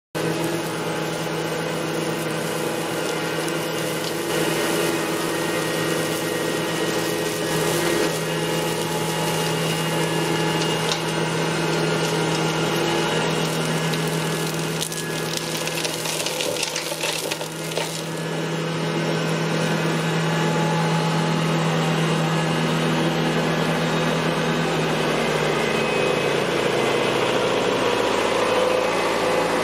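Trackless MT7 tractor running with its hydraulic boom flail mower spinning and chopping roadside brush and grass: a steady machine drone with a rougher stretch of cutting noise midway through. The hum drops slightly in pitch near the end as the tractor passes close.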